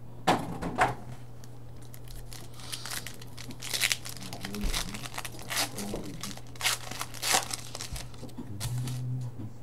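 Trading-card pack wrapper being torn open and crinkled by hand, in a series of short rips and rustles.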